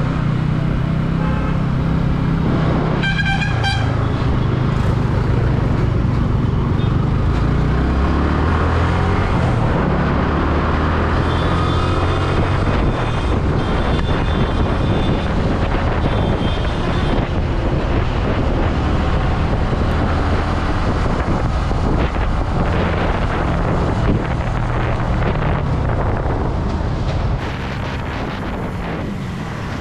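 Yamaha sport motorcycle's engine pulling away and accelerating, its pitch climbing in steps, with air rushing past and road traffic around it. A vehicle horn toots briefly about three seconds in.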